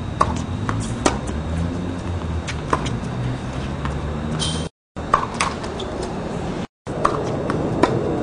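Tennis ball being knocked and bouncing on a hard court between points: several short sharp pops, scattered a second or more apart, over a steady low hum. The sound cuts out completely for a moment twice in the second half.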